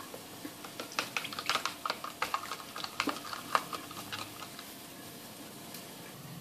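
Metal spoon clinking and scraping against a small glass bowl while stirring a dark paste into water: a quick, irregular run of clicks that stops about four and a half seconds in.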